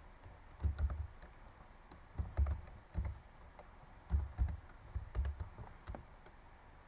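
Typing on a computer keyboard: single keystrokes and short runs of keys, irregularly spaced, each a click with a dull thud.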